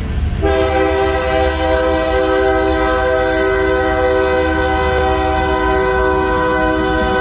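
BNSF freight locomotive's air horn sounding one long, steady blast at a road crossing, starting about half a second in, over the low rumble of the passing train.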